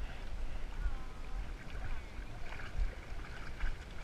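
Water sloshing and rumbling around a GoPro mounted on a swimming dog, with a low, steady rumble as the loudest part.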